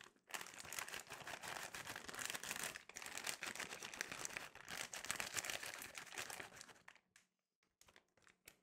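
A glossy plastic bag of plaster of Paris crinkling and rustling as it is squeezed and shaken empty. The crinkling stops about seven seconds in, leaving a few faint ticks.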